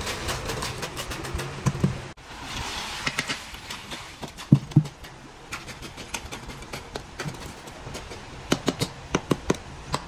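Wet concrete tipped from a metal bucket into beam formwork, then a steel bar jabbed repeatedly into the fresh concrete to compact it. It gives irregular knocks and clinks against the rebar and formwork. The loudest sound is a pair of thuds about halfway through.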